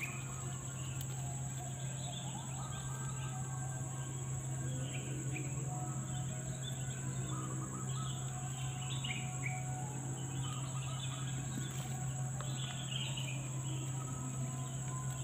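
Forest ambience: a steady high-pitched insect drone, with short bird chirps scattered throughout, over a low steady hum.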